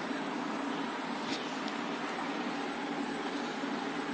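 Steady background hiss and low hum of room noise, with one faint click about a second in.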